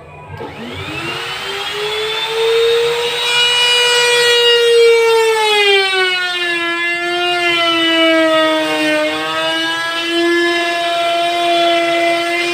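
Electric wood router starting up, its whine rising as the motor spins up in the first couple of seconds, then running steadily. Its pitch sags and settles slightly lower from about the middle onward, as if taking load in the plywood.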